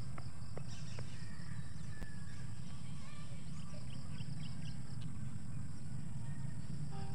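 Rural outdoor ambience: a steady low rumble, a few sharp clicks in the first second, and a bird chirping several times in quick succession around the middle.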